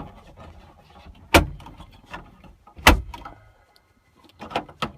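Plastic overhead console of a 2001 Ford F-250 Super Duty being pushed up into the cab roof and snapped into its clips: two sharp snaps about a second and a half apart, then a few lighter clicks near the end.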